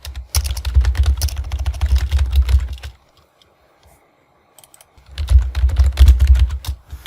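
Loud, fast typing on a computer keyboard: two runs of keystrokes with a pause of about a second and a half between them.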